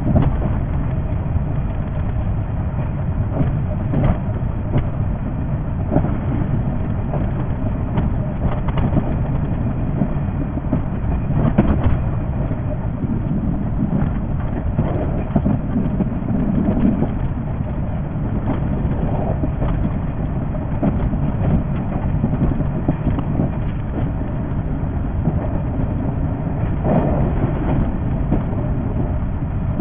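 381 series electric train running along the line, a steady rumble with occasional short clicks.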